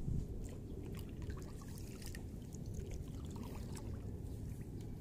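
Kayak paddle strokes: water trickling and dripping off the paddle blades, over a low steady rumble.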